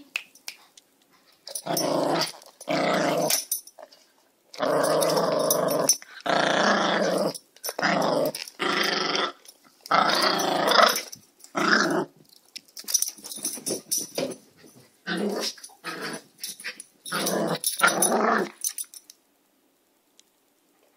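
Small dogs growling in play: a long run of separate growls, each lasting from about half a second to a second and a half, which stops a couple of seconds before the end.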